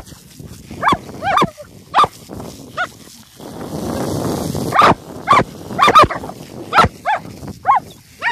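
German Shepherds barking in short, high yelps, about ten in all. Midway comes a second and a half of hiss from a spraying water jet.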